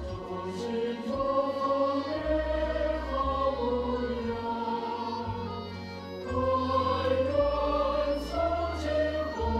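A choir of voices singing long held notes, with a deep bass note underneath that shifts every second or so.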